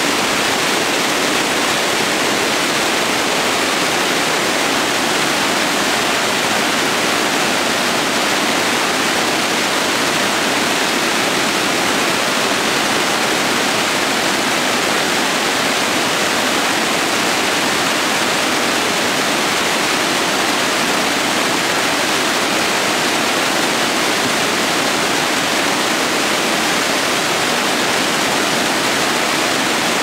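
Whitewater cascading over rocks at a small waterfall: a steady, unbroken rush of water.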